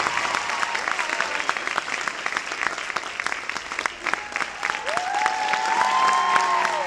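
An audience applauding with many hands clapping. A few long, held calls from the crowd rise over the clapping from about five seconds in.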